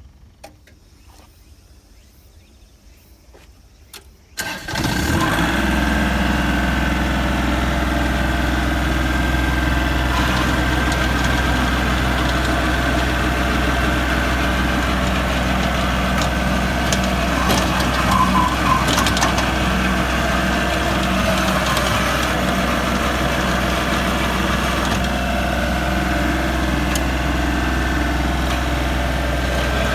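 Wood chipper's engine starting about four and a half seconds in after a few faint clicks, then running steadily.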